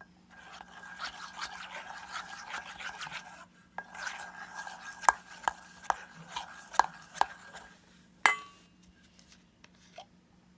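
A utensil scraping around a bowl as slime is stirred, then tapping and knocking against the bowl several times, with one sharp loud clack about eight seconds in.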